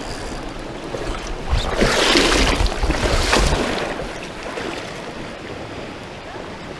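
Steady rush of high river water, with wind buffeting the microphone in low thumps. The noise swells louder for about a second and a half, starting about two seconds in.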